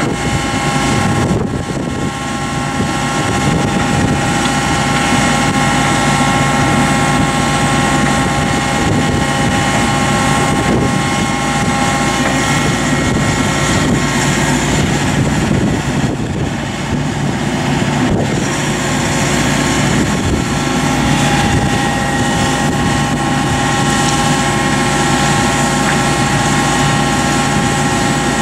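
John Deere 135G excavator's diesel engine running steadily under load, with a steady high hydraulic whine, as it lifts a fiberglass pool shell.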